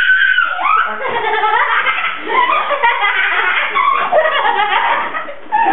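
People laughing and squealing, high voices sliding up and down with hardly a pause.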